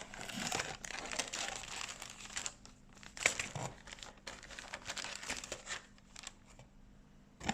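Packaging around a plastic model kit's small parts crinkling and rustling as it is handled. The crinkling is busiest over the first few seconds, then thins to scattered crackles.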